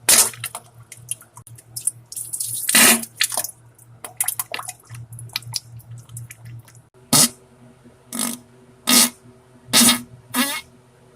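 Wet, spluttering diarrhea farts with a liquid splatter: a rapid, uneven run of sharp bursts, then five separate blasts about a second apart near the end.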